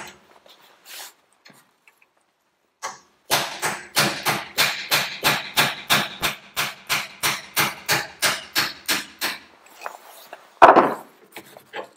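Hammer tapping on a steel punch to drive a keyed steel boss back off a Ferguson TED20 brake cross shaft held in a vice. The taps come quickly and evenly, about four a second for some six seconds, followed by a single heavier knock. The part is being knocked off because it binds: its key sits a little proud on one side.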